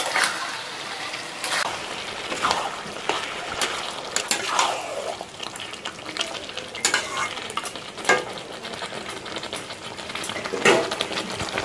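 A spatula stirring meat and masala paste in a steel kadai, scraping and clicking irregularly against the pan over a steady sizzle as the spices are worked into the meat.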